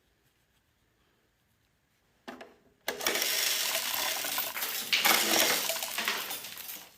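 A clatter of many small hard objects rattling and tumbling together. It starts about three seconds in and lasts about four seconds.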